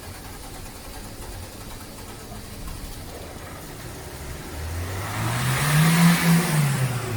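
Maruti Suzuki S-Cross engine idling steadily, then revved once: the pitch rises about five seconds in, peaks, and falls back. The engine is presented as running smoothly with no knocking after a carbon-cleaning treatment.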